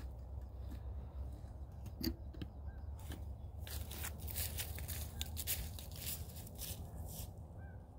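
Irregular crinkling and rustling of a paper sky lantern being handled, with a dense run of sharp crackles and clicks from about three to seven seconds in.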